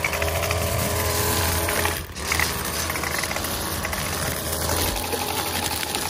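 Gas-powered string trimmer running steadily while cutting weeds, with a brief dip in level about two seconds in.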